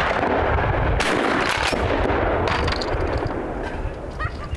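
Pump-action shotgun fired at clay targets: sharp reports about a second in and again shortly after, over a steady low rumble.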